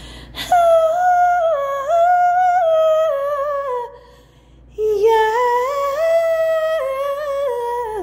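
A woman humming a tune without words in two phrases of about three seconds each, with a short breath between them about four seconds in.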